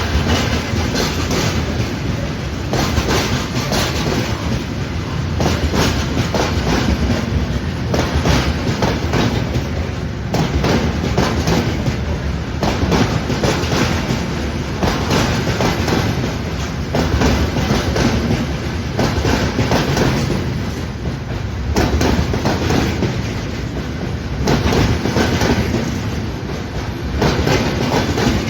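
Freight train rolling past, its wagon wheels clattering over rail joints, with a louder burst of clatter about every two and a half seconds over a steady rumble.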